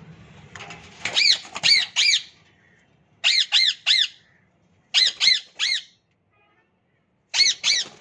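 Indian ringneck parrots screeching: four bursts of three loud, sharp squawks, each a quick rise-and-fall note, with short pauses between the bursts.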